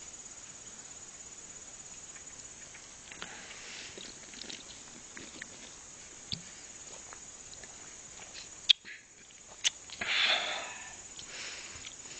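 Crickets giving a steady high-pitched drone, with two sharp clicks about three-quarters of the way through, then a short breathy noise close to the microphone.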